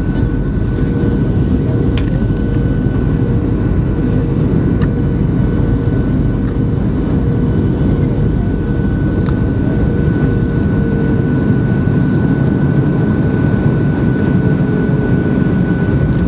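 Cabin noise of a Boeing 737-500 on final approach: the steady rumble of its CFM56 turbofan engines and rushing airflow, with two steady whining engine tones above it.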